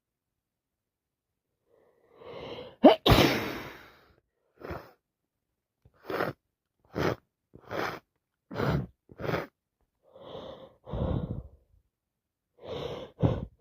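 A woman with a heavy head cold sneezing once, loudly, about three seconds in, after a rising intake of breath. A string of short, sharp breaths about a second apart follows, and a few more near the end.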